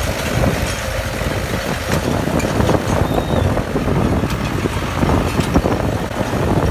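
Diesel tractor engines working hard under load as two tractors, one of them a Mahindra 575 DI, pull disc implements through the soil, a steady dense engine sound.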